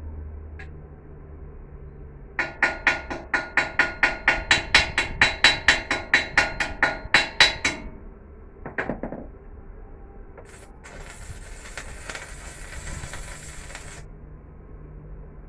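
A hammer striking steel in a fast run of ringing blows, about four or five a second for some five seconds, then a single blow. Later a steady hiss lasts about three seconds.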